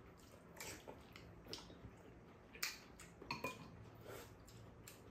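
Faint, scattered clinks and taps of spoons against ceramic bowls, with quiet eating sounds between them.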